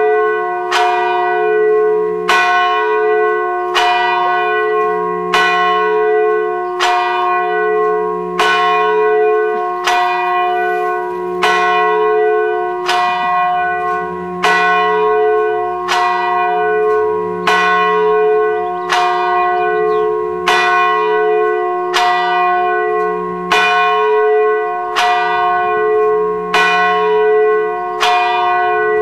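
A single church bell tolling steadily, struck at an even pace of about one stroke every 1.3 seconds at the same pitch, each stroke ringing on into the next.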